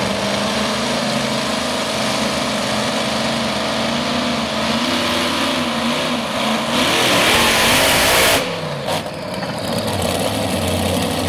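Supercharged multi-engine modified pulling tractor running under throttle as it pulls the sled, the engine note wavering. About two-thirds of the way in it climbs to full power and is loudest for under two seconds, then cuts back sharply to a lower run.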